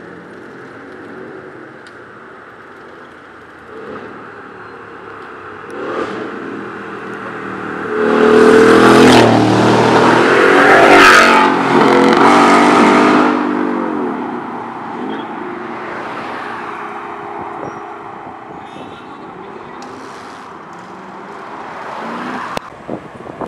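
Ford Mustang GT's V8 through a Roush aftermarket exhaust, accelerating hard past. The engine note rises to a loud peak about eight seconds in and holds for several seconds, then fades as the car pulls away. Another engine approaches near the end.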